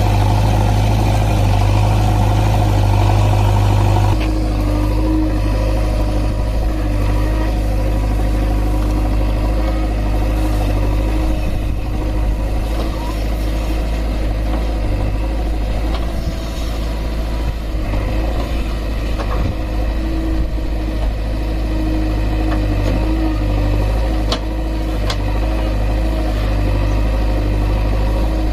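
Diesel engine of a JCB 3DX backhoe loader running steadily as the machine digs and loads soil, its tone shifting a little as the hydraulics work.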